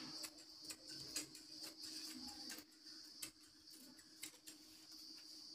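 Tailor's scissors cutting through cloth: faint, irregular snipping clicks, a few a second.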